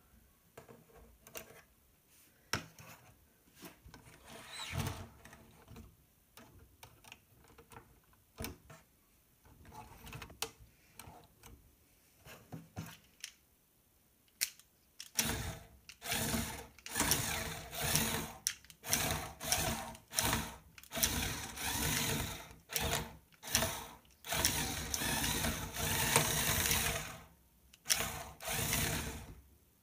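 Small electric motors of a LEGO Technic tracked loader whirring with gear and track clatter, driven in many short stop-start bursts from about halfway on, after a first half of only faint clicks.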